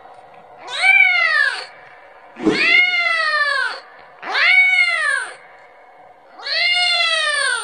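Kitten meowing repeatedly: four drawn-out meows about two seconds apart, each rising and then falling in pitch. These are the calls of a kitten crying for its mother and wanting milk.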